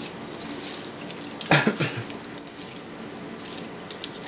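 Hot stretched suluguni cheese mass squeezed and shaped by gloved hands over a bowl of hot whey: wet squelching with small crackles and drips. One louder short thump comes about a second and a half in.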